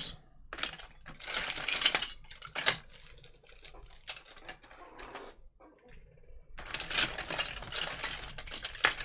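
Toy cars, metal chassis and plastic parts, clattering and rattling against each other in a plastic tub as a hand rummages through them. The clatter comes in bursts, with a short lull a little past the middle, and turns busier near the end.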